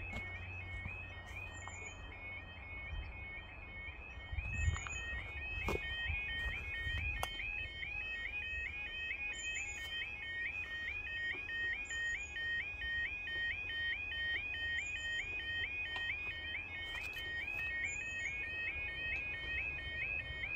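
Level crossing audible warning alarm sounding continuously: an electronic two-tone warble repeating rapidly and evenly. It signals that the crossing's warnings have been activated and a train is approaching.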